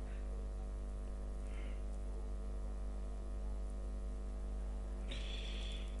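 Steady electrical mains hum with a stack of overtones, running unchanged with no other sound over it.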